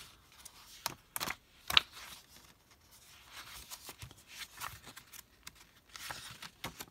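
Paper pages of a spiral-bound planner being turned and riffled by hand, with a few sharp paper snaps in the first two seconds, the loudest near the two-second mark, then faint rustling.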